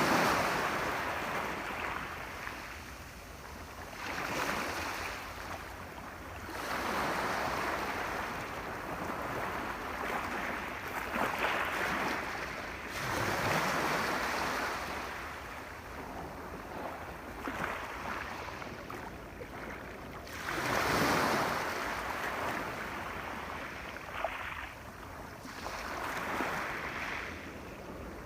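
Sea waves breaking and washing up the shore, a rushing sound that swells and fades with a new surge every three to four seconds.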